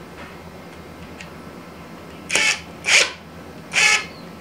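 Cordless driver running in three short bursts, the first about two seconds in, driving a screw to fasten a straight-edge jig to a plywood panel.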